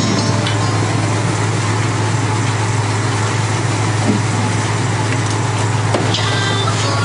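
Motor running steadily with a constant low hum and a wash of noise, typical of a boat's engine under way.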